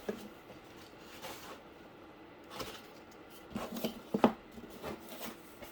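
Cardboard and small objects being handled on a work table: scattered rustles and light knocks, with one sharp knock about four seconds in.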